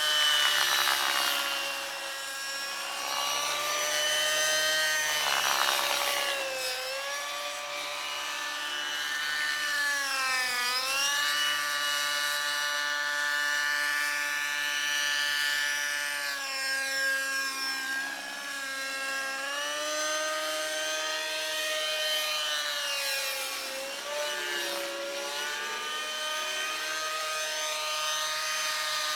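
Fuel-powered radio-controlled model helicopter in flight, its engine and rotor making a high, steady whine that dips and climbs in pitch several times as it swoops low and passes close.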